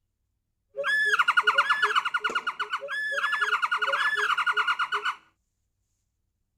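A bird calling in two bouts of fast, high trilling chatter, each bout opening with a short arched note, which stops abruptly a little after five seconds in.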